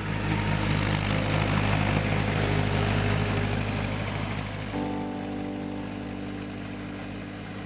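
Tractor engine running steadily as the tractor works through a flooded paddy field on cage wheels, pulling a rotary tiller. Sustained music notes come in over it about five seconds in.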